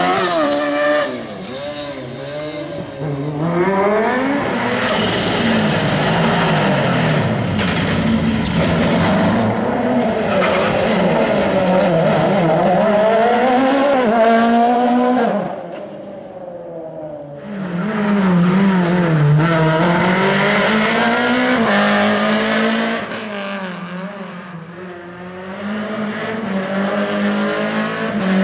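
Racing car engines revving hard up and down with quick gear changes as the cars are thrown through a cone slalom, one car after another. The sound drops away briefly about halfway through before the next car comes in.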